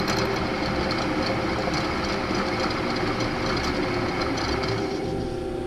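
Milling machine spindle running a fly cutter, its freshly ground high-speed-steel bit taking a hand-fed facing cut across a steel block: a steady mechanical hum with a dense cutting noise over it. The higher cutting noise thins a little before the end.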